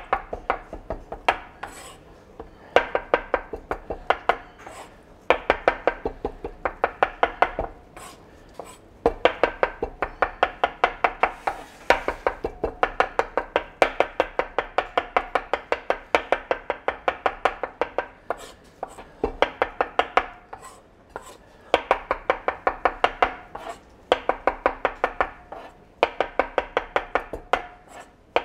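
Chef's knife finely chopping hard-boiled egg whites on a plastic cutting board: quick runs of rapid knife strikes, several a second, broken by short pauses.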